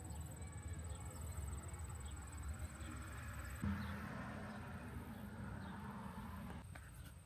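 Outdoor ambience with a steady high-pitched insect trill, over a low rumble; a low hum comes in suddenly about three and a half seconds in and drops out shortly before the end.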